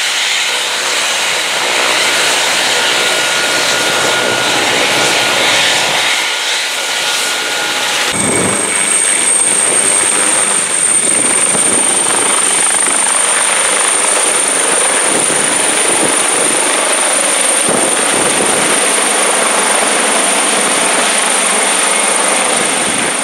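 Fire-brigade rescue helicopter's turbines and rotor running at take-off power as it lifts off the pad and climbs overhead. A high steady whine comes in about eight seconds in.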